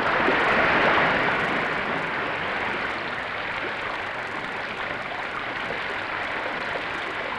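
Seawater rushing and churning in a steady noise around a towed submarine-like test hull as it breaks the surface in white foam. Loudest about a second in, then easing slightly.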